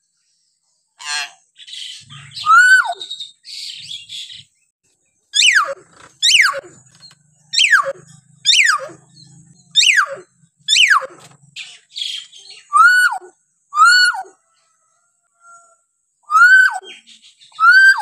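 Hill myna calling. It starts with a few harsh raspy notes, then gives a run of loud whistles that each sweep steeply downward, about one a second. Near the end come several shorter whistles that rise and then fall.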